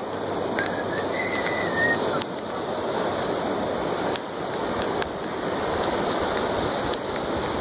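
Ocean surf washing onto the beach, a steady rushing, with a brief high whistle about a second in.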